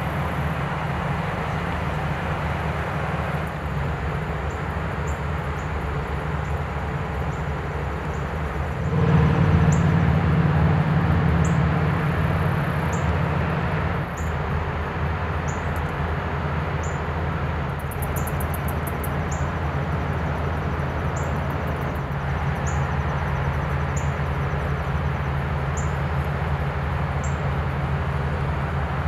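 Steady low rumble of outdoor background noise that swells for several seconds about a third of the way in, then settles back. Over it, a small bird gives a high, thin chip about once a second.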